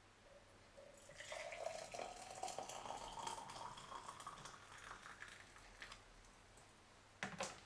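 Water poured from a glass electric kettle into a tall drinking glass, the pitch rising as the glass fills. A couple of sharp knocks come near the end.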